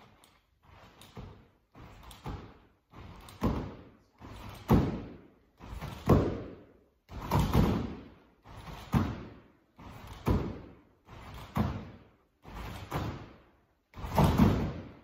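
Full-size trampoline bouncing under a gymnast, one landing about every 1.3 seconds. Each landing is a swelling rush of sound that cuts off sharply. The landings grow louder over the first few bounces as she builds height, then hold steady through the routine's jumps and seat drops.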